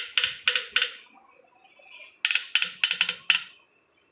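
Ratchet wrench clicking in quick runs of sharp clicks, a short run at the start and a longer one after a pause of about a second, as crankshaft main bearing cap bolts are turned through a 90-degree angle-tightening step.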